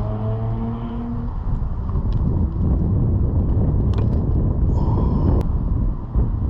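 Steady low rumble of wind on the microphone and traffic, with a pitched engine hum that fades out about a second in and a few light clicks later on.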